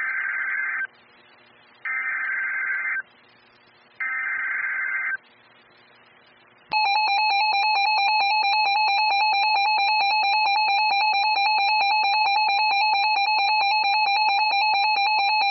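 Emergency Alert System activation on weather radio. Three digital SAME header bursts, each a screechy data warble of about a second with a second's gap between, are followed about seven seconds in by the steady, loud two-tone EAS attention signal that announces a tornado warning.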